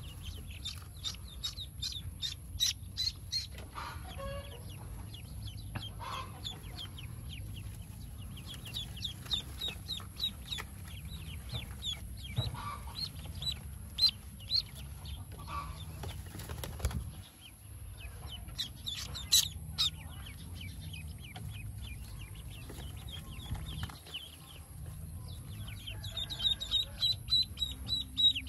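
Pekin ducklings peeping: quick runs of short, high cheeps that come thickest near the end, with rustling and a few knocks as the ducklings are handled.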